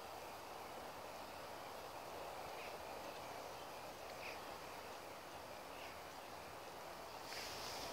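Faint steady outdoor background noise with a few short, faint bird chirps, and a brief hiss near the end.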